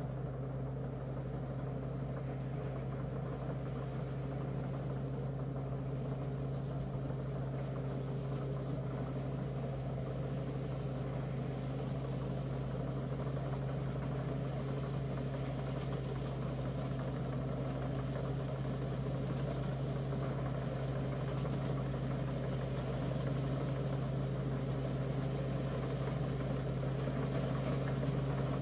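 Harvesting tractor's engine running steadily with a low, even drone, a little louder near the end.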